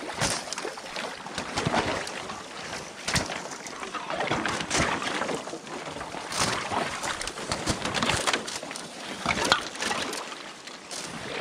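Thin ice cracking and crunching, with water sloshing, as a wader breaks through it in uneven steps.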